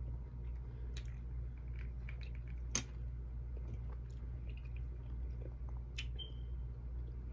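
A person chewing food with soft wet mouth clicks, over a steady low hum. There is a sharp click about three seconds in and another near the end.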